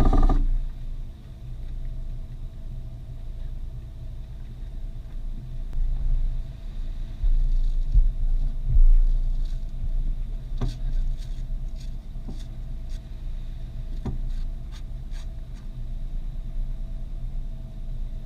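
Boat engine running steadily with a low hum, with a louder low surge about halfway through and a few faint clicks later on.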